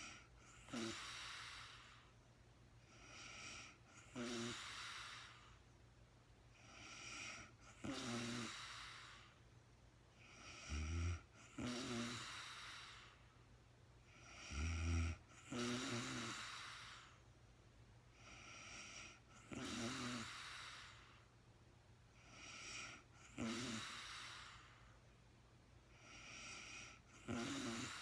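A sleeping woman snoring with slow, even breaths, about one every four seconds. Each breath starts with a short pitched snore and runs into a longer airy breath sound. The snores are deepest and loudest around the middle.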